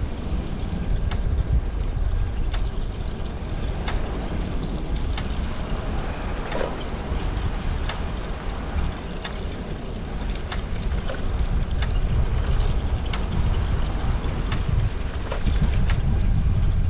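Wind buffeting the microphone of a head-mounted camera while riding a bicycle, giving a steady low rumble, with scattered faint clicks throughout.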